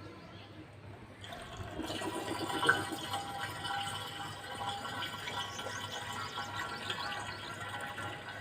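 Diesel fuel being poured, a steady trickling and splashing that starts about a second in.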